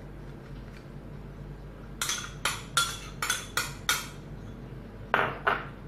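A quick run of six sharp kitchen clinks and taps, then two more near the end, as utensils and containers knock together over a baking tin.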